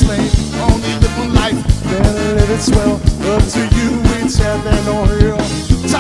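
Ska band playing live: drum kit and hand drums keeping a steady beat under bass, guitar, keyboard and a horn section of saxophone and trombone.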